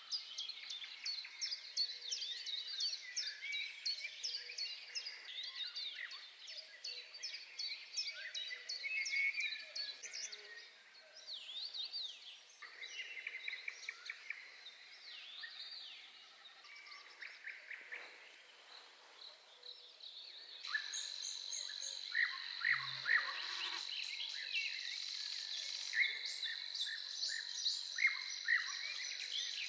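Several songbirds singing together in a dense morning chorus of quick, varied phrases. About two-thirds of the way in, a steady high-pitched insect drone starts and carries on beneath the birdsong.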